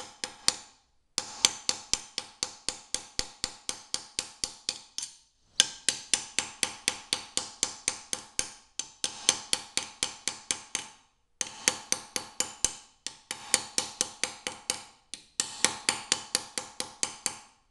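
Small ball peen hammer striking a 14-gauge steel plate at about four blows a second, each blow ringing metallically. The plate is being curved into a hachigane forehead plate. The blows come in runs of a few seconds, with several brief pauses between runs.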